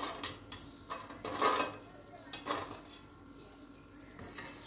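Wire spider skimmer clinking and clattering against a steel kadhai and plate as fried shakkarpare are lifted out of the oil, a handful of short metal knocks with the loudest about a second and a half in, over the faint sizzle of oil frying.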